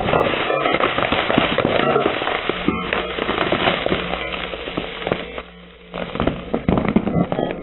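Brittle Christmas village pieces being crushed: a dense run of cracking and crunching, many small snaps in quick succession. It dies down about five and a half seconds in, then a second burst of crunching follows.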